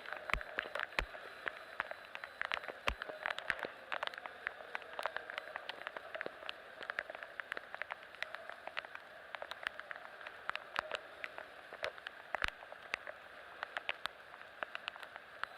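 Typhoon rain falling steadily, with many irregular sharp drop ticks over a constant hiss.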